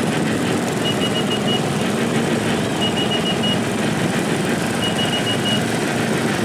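Small garden tractor engines running as a line of vintage garden tractors and riding mowers drives slowly past. Over them comes a repeated high electronic beeping: a quick run of pips about every two seconds.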